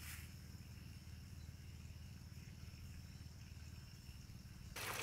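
Faint field ambience with a steady high-pitched insect call. Near the end, water suddenly starts spraying from a watering hose onto the plants with an even hiss.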